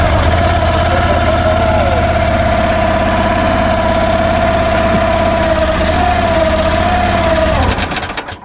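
Gasoline engine of a Future FT15 mini excavator running steadily just after starting on fresh fuel, with a slight wobble in speed, then winding down and stopping near the end.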